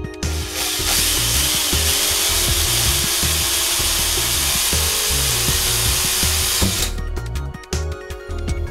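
Hitachi cordless drill running in one long, steady run, boring a 2.5 mm pilot hole into the ceiling, then stopping about seven seconds in. Background electronic music with a steady beat plays underneath.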